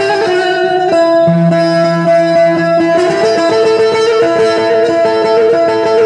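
Amplified Kurdish tembur (long-necked lute) playing a free-rhythm improvised melody with ornamented, wavering runs over a steady held drone note.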